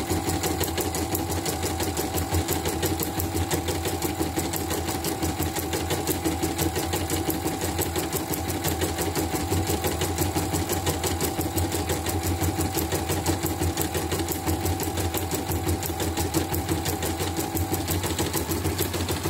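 CNY portable embroidery machine stitching a design with its side cover off, the needle mechanism running at a rapid, even rhythm. This is a test run after repair of a machine that had been completely dead.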